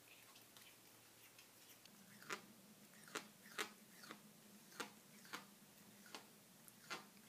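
A cat making clicking noises with its tongue: sharp, irregular clicks, a few faint ones at first, then about seven louder ones from about two seconds in.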